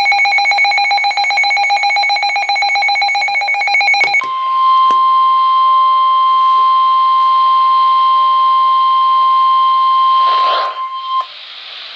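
An emergency alert signal: a harsh, rapid digital buzz for about four seconds (the alert's encoded header data), then the steady single-pitch 1050 Hz NOAA Weather Radio warning alarm tone for about seven seconds, cutting off abruptly near the end.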